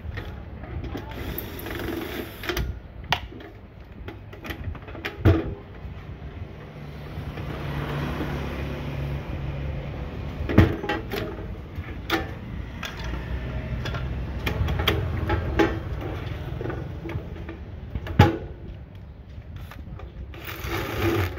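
Sheet-metal casing of an inverter welding machine being handled and turned over on a workbench: scattered sharp knocks and clicks, with a screwdriver working at the handle screws near the end, over a steady low hum.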